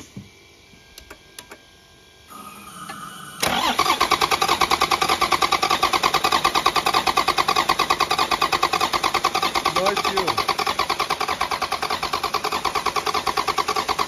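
Toyota 1HD-FTE 4.2-litre straight-six turbo-diesel turning over on its starter motor in fast, even pulses and not firing, because no fuel is getting through. The owner later traces this to the immobiliser. A few faint clicks and a short hum come before the starter engages, about three and a half seconds in.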